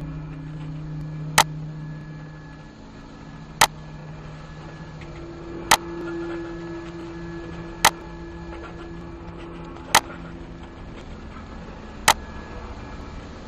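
Mouse clicks on a browser's refresh button: six sharp single clicks about two seconds apart, over a low steady drone with a few faint held tones.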